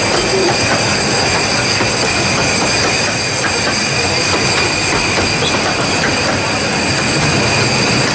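A train of 15-inch-gauge miniature railway coaches rolling past at close range, wheels clicking over the rails, under a loud, steady high-pitched hiss and squeal.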